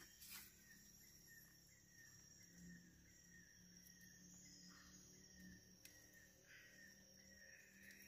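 Near silence, with a faint steady high-pitched insect buzz.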